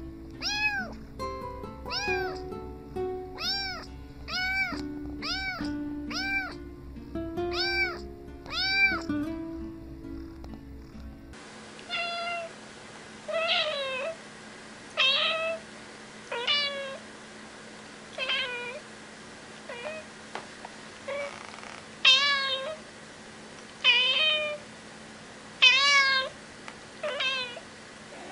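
A cat meowing over and over, about two meows a second, with music playing underneath. About eleven seconds in, another cat takes over, meowing loudly about every second and a half, with no music.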